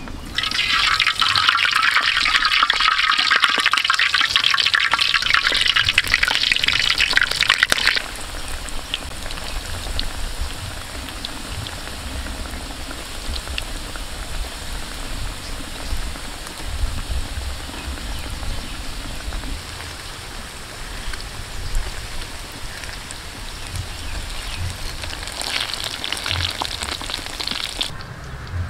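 Coated balut duck eggs deep-frying in a steel wok of hot oil: a loud, dense sizzle for about the first eight seconds, settling to a quieter steady bubbling with small crackles, then louder again for a couple of seconds near the end.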